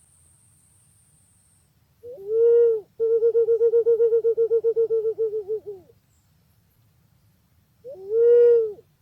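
Pink-necked green pigeon (punai pink) calling: a low arched whistle, then a fast run of rapid pulsed notes that slowly fades, then another arched whistle near the end. This is the call used as a lure for the bird.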